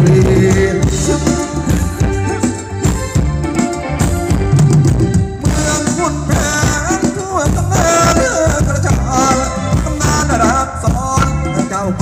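Thai ramwong dance music from a band, with a singer's melody over a steady beat.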